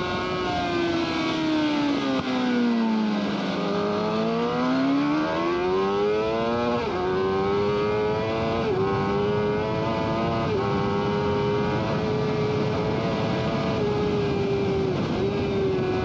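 Suzuki GSX-R750 inline-four engine heard onboard at speed on a race track. The revs fall steadily for about three seconds, then climb hard with three quick upshifts about two seconds apart, and the engine holds high revs under wind rush.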